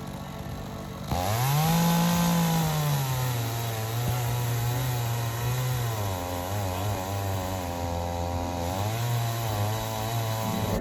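Chainsaw idling, then throttled up about a second in and run cutting into wood. The engine pitch rises briefly, then sags and wavers under load before cutting off abruptly at the end.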